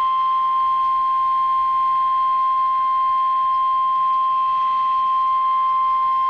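NOAA Weather Radio's 1050 Hz warning alarm tone: one loud, unbroken, steady high tone. It is the signal that a warning message follows, here a severe thunderstorm warning.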